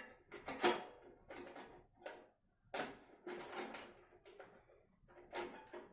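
Irregular clicks and knocks of hard parts being handled: an SSD being tried against mounting spots inside a plastic PC case. The loudest click comes about half a second in.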